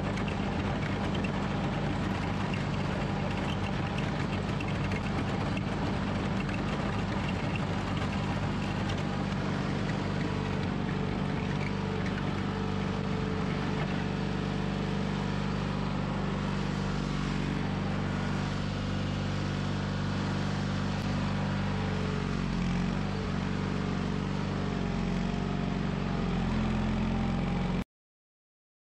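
John Deere 420 garden tractor's air-cooled Onan twin-cylinder engine running steadily as the tractor drives and pushes snow with its front plow blade, the pitch wavering a little in the last few seconds. The sound cuts off suddenly about a second before the end.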